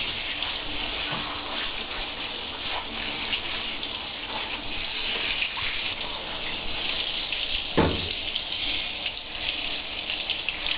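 Water spraying steadily from a handheld shower head onto a dog's wet coat and the shower floor, with one sharp knock about eight seconds in.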